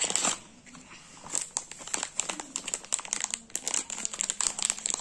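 Paperboard box pulled open, then the clear plastic bag of hair clips inside crinkling as it is handled: dense, irregular crackling throughout.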